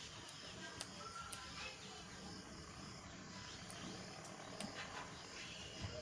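Faint background with a few scattered soft clicks from a male Indian ringneck parrot nibbling a piece of roti with its beak.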